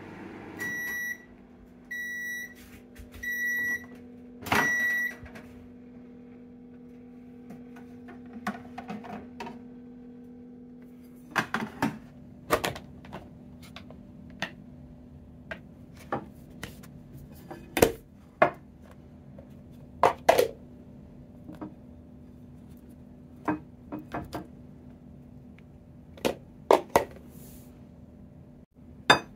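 Sharp microwave oven beeping four times, about a second apart, at the end of its cooking cycle, over a steady low hum. From about a third of the way in, a scattered series of sharp clicks and knocks follows as a plastic rice tray is handled and turned out onto a ceramic plate.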